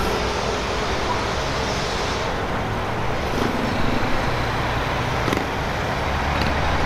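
Motorcycle engine running steadily amid road and traffic noise in slow traffic.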